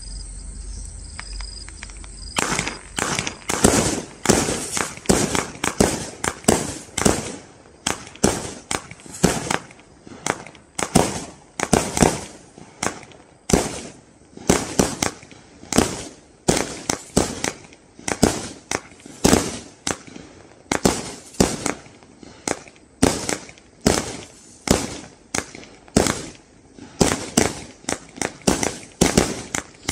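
Rage Quit 81-shot, 20 mm firework barrage (Category F3 cake) firing shot after shot, about one or two loud bangs a second, starting a couple of seconds in.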